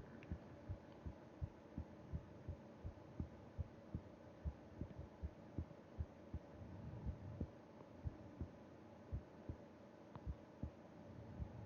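A sleeping person's heartbeat heard through the chest wall: steady, even lub-dub thumps. Soft slow breathing swells in underneath about halfway through and again near the end.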